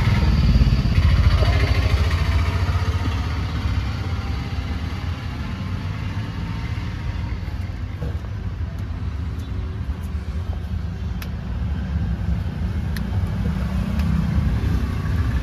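Engine and road noise of a moving vehicle: a steady low rumble that eases slightly in the middle and builds again near the end.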